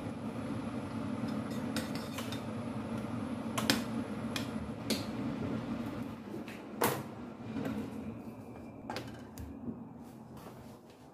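Kitchen clatter: a series of clinks and knocks from a spoon, a glass jar and a stainless steel saucepan being handled and set down, the sharpest about seven seconds in. Under it a steady low rushing from the gas stove and the hot pot fades out after about six seconds, as the pot comes off the heat.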